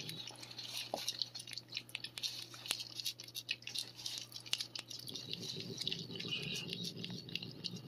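Cat licking and chewing lickable paste treat (Churu) from a squeeze tube held to its mouth, a run of small wet clicks and smacks.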